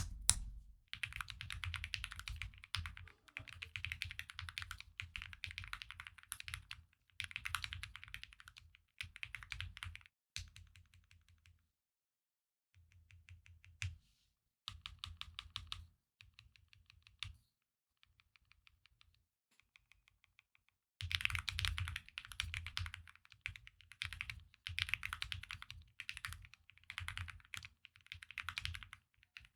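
Typing on an Akko SPR67 spring-mounted mechanical keyboard fitted with PBT keycaps. The keystrokes come in quick bursts with short pauses between them. A quieter, lighter stretch falls around the middle, and fast typing picks up again after it.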